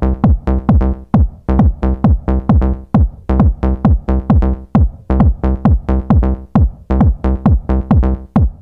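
Electronic intro music with a fast, driving drum-machine beat, each beat a deep note that drops steeply in pitch.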